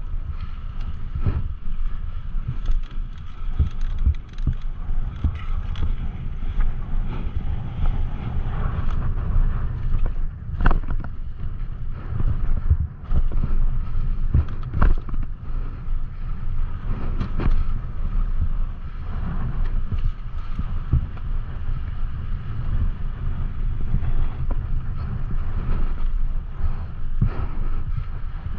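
Mountain bike riding a trail in strong wind: heavy wind rumble on the microphone, with frequent sharp clacks and rattles from the bike over bumps.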